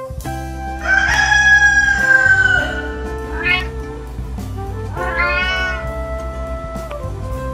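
A rooster crows once, one long call about a second in, then a cat meows twice with short rising-and-falling calls. Background music with a steady beat runs underneath.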